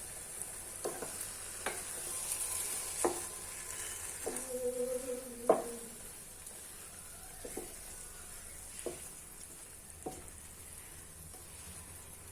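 Broken wheat upma cooking down in a pan with a steady sizzling hiss, as a spoon stirs it with scattered scrapes and knocks against the pan. A brief held tone comes about four to six seconds in.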